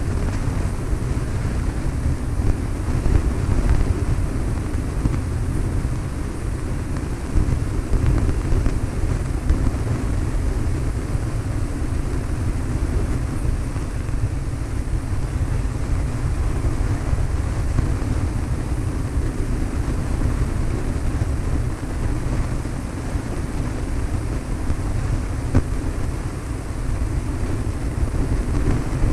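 Cessna 152's four-cylinder Lycoming engine and propeller heard from inside the cabin as a steady drone, with wind noise on the microphone.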